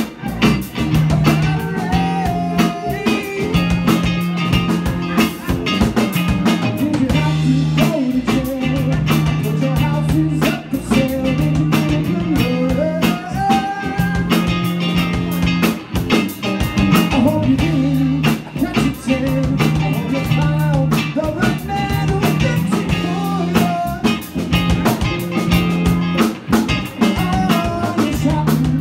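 A live rock band playing a song: a man singing lead over an electric guitar, an electric bass and a drum kit. The bass repeats held notes under the vocal melody, with drum hits throughout.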